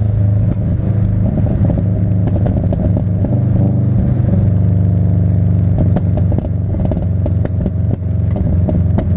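Subaru Impreza GC8 flat-four engine held at steady revs, its exhaust firing off a run of sharp pops and crackles that come thickest in the second half.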